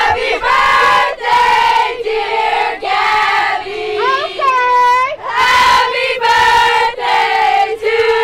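A group of cheerleaders chanting a cheer in unison through cone megaphones, in short held shouted syllables about once a second, with a rising and falling whoop about halfway through.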